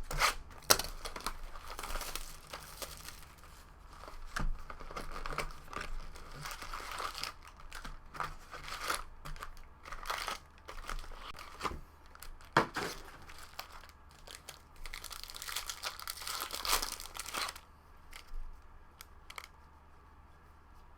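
Plastic wrapping and foil trading-card pack wrappers being crinkled and torn open in irregular bursts, with sharp snaps. It turns quieter near the end, with only a few light ticks.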